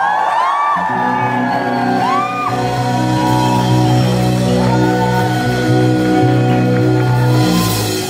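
Live rock band holding a long closing chord on electric guitar and bass, the chord ringing on for several seconds through a loud hall PA. Audience members whoop and shout over it.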